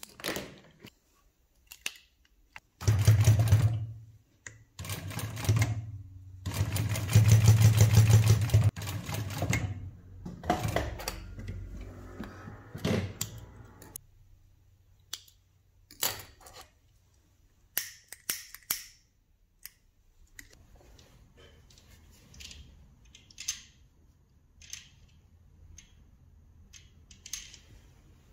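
Industrial single-needle sewing machine stitching cotton curtain fabric in several short runs, the longest about three seconds, each a fast even needle beat over the motor hum. Scattered small clicks and snips of thread snips follow.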